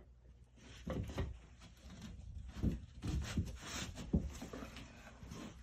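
A sheet of drywall being picked up and moved into place: irregular knocks, bumps and rustling scrapes, starting about a second in.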